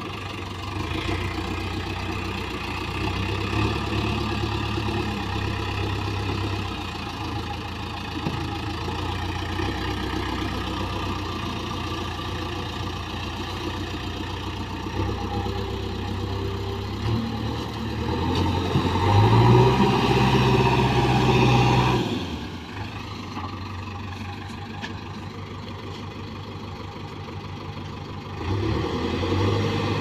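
JCB 3DX backhoe loader's diesel engine running under load as the machine works itself through and out of river water. It revs up harder about eighteen seconds in, drops back sharply at about twenty-two seconds, and picks up again near the end.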